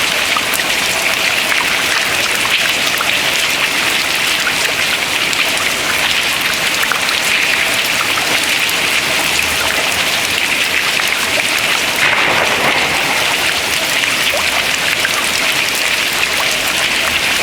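Dense, steady dripping: many drops of water pattering into the water below, a continuous sound speckled with individual plinks.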